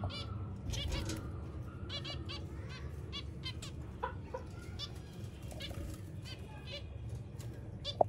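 Caged finches chirping: many short, high calls, several a second, overlapping one another.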